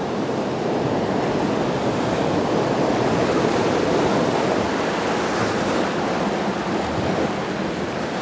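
Rushing whitewater of a river rapid heard from a drift boat running through it: a steady rush of churning water that swells a little midway.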